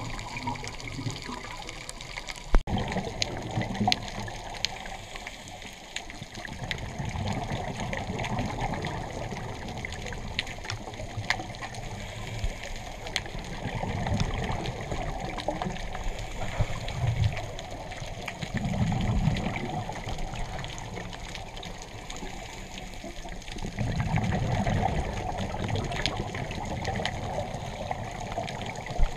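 Scuba diver's regulator heard underwater: exhaled bubbles gurgling in swells every few seconds, over a steady bed of faint clicks and crackle.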